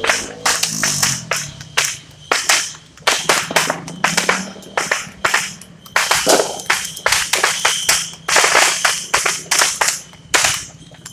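Firecrackers going off in rapid, irregular succession: many sharp bangs, several a second, with a dense run of crackling about eight seconds in.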